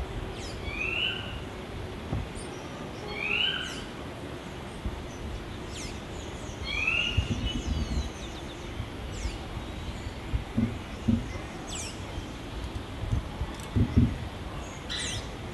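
Oropendolas calling at their colony of hanging nests: three short rising calls in the first eight seconds, with thin high whistled notes scattered through. A low gusty rumble of wind on the microphone runs underneath.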